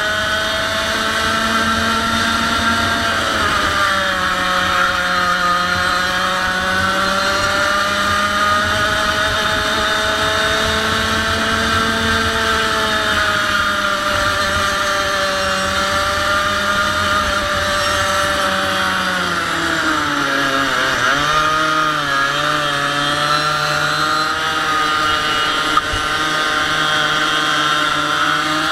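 100cc two-stroke kart engine running hard, its pitch rising and falling as it revs through the corners. It drops to its lowest about three quarters of the way through, then climbs again. There is a single sharp click near the end.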